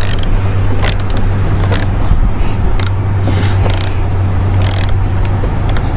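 Hand ratchet clicking in short strokes as a fastener is turned, a sharp click about once a second, over a steady low hum.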